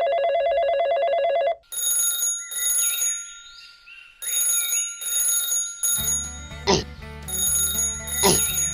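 Electronic background music with repeating chime-like tones. It opens with a second and a half of buzzing ring like an alarm bell, and a bass line comes in about six seconds in, with two quick pitch sweeps.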